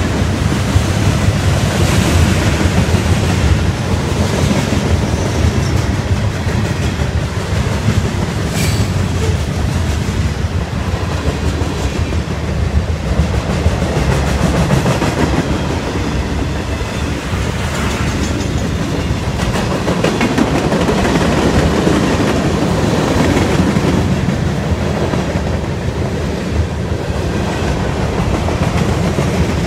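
Mixed freight train, CSX Q410, rolling past on the near track: a steady rumble of freight cars' wheels on the rails.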